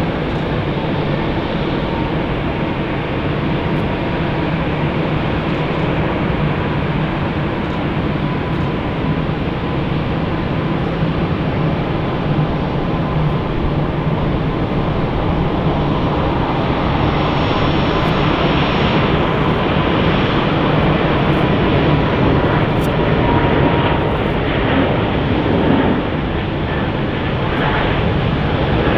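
Jet airliner engines running: a steady rushing noise with a faint steady whine, swelling slightly about two-thirds of the way through.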